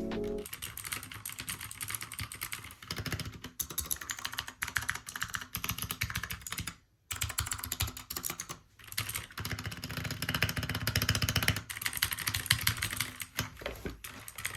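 Fast typing on a Royal Kludge RK61 mechanical keyboard with clicky blue switches: a dense, continuous patter of key clicks, with a short break about seven seconds in.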